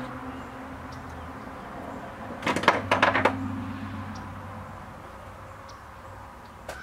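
A quick cluster of four or five sharp clicks and clacks, about two and a half seconds in, as small clamps are handled and set along the glued countertop edge. A faint steady hum runs under it.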